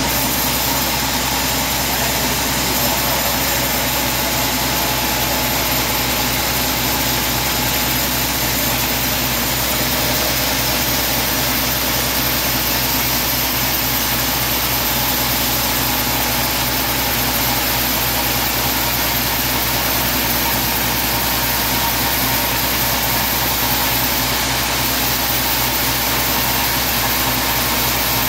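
Large vertical band sawmill ripping a teak log lengthwise into a slab, the log carriage feeding steadily through the blade. The saw makes a steady, unbroken mechanical drone with a hiss of the cut that does not let up.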